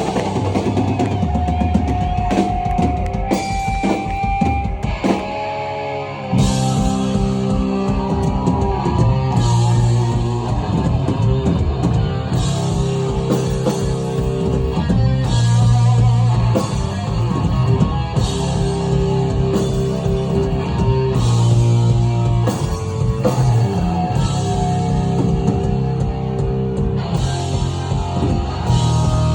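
A live rock band playing loud, with a drum kit, bass and electric guitar. A sparser opening gives way to the full band coming in about six seconds in.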